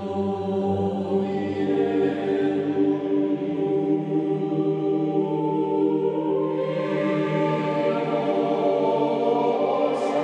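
Choral music, voices singing slow chant in long held notes; the chord changes about two thirds of the way through.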